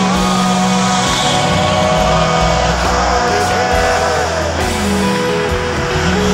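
Rock song playing: an instrumental stretch with guitar, with long held and sliding notes over a low bass line.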